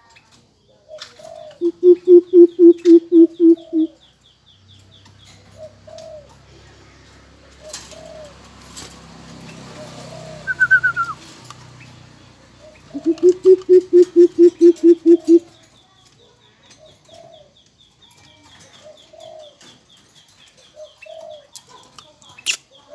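Greater coucal hooting: two runs of about ten deep, evenly spaced hoots, the first starting about two seconds in and the second about thirteen seconds in. Softer calls and a faint high ticking can be heard between them.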